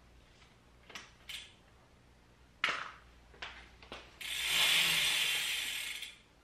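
A few separate clicks and knocks, then about two seconds of a road bike's rear freehub ratcheting in a fast, even buzz, starting about four seconds in.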